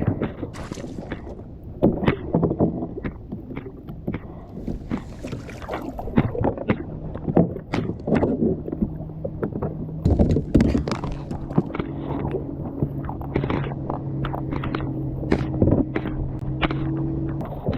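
Irregular knocks and clatter of a fishing kayak and its gear being handled. A steady low hum starts about eight seconds in and stops shortly before the end.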